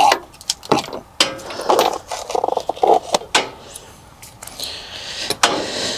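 Hands working a hose and its metal fitting: a string of irregular clicks, knocks and scrapes of metal and rubber being handled, with a short hissy scrape about five seconds in.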